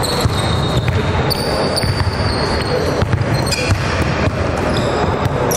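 A basketball bouncing and being passed on a hardwood court, with repeated sharp thuds and brief high-pitched squeaks of sneakers on the floor.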